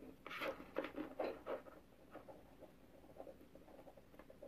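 Faint scratching and rustling of fingers untwisting two spliced wires, a quick run of small scrapes in the first second and a half, then a few softer ticks.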